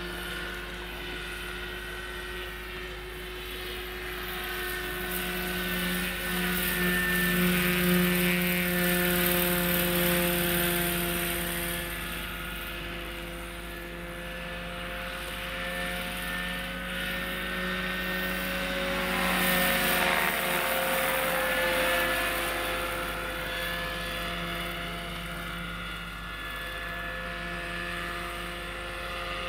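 Electric Bo 105 superscale 800 model helicopter in flight, its Hacker electric motor and about 1.5 m main rotor giving a steady humming whine. It grows louder as the model passes close, about six to eleven seconds in and again around twenty seconds, when the pitch bends as it goes by.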